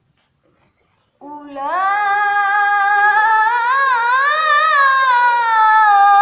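Quran reciter chanting in the melodic tilawah style: after about a second of silence, a single voice holds one long melismatic note with a wavering, ornamented pitch.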